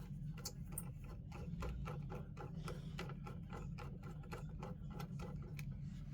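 Cordless electric screwdriver running steadily while backing a screw out: a low motor hum with rapid, even ticking.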